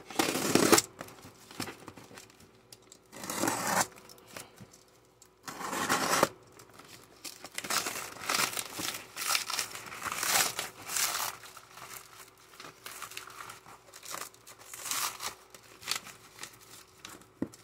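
Plastic stretch wrap on a cardboard box being slit with a utility knife and torn and peeled away, in irregular crinkling and tearing bursts, the loudest in the first second.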